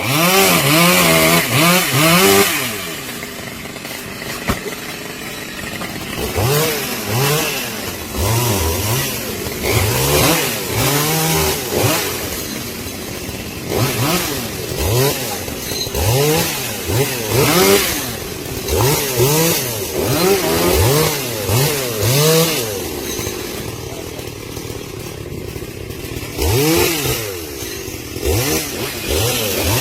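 Chainsaw engine running and revved up and down over and over, with pitch sweeps following each other about a second apart and a stretch of steadier running near the end. It comes in loud right at the start, and the first couple of seconds are the loudest.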